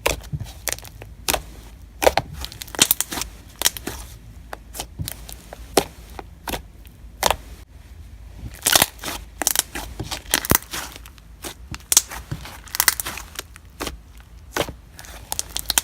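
Thick slime being stretched, pressed and squished by hand, making many irregular sharp clicks and pops. This slime is a really clicky, stretchy texture.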